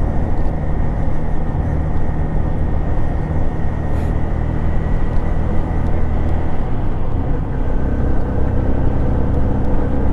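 Motorcycle engine running at a steady cruising speed, with road and wind noise, while riding over a rough, uneven concrete road surface.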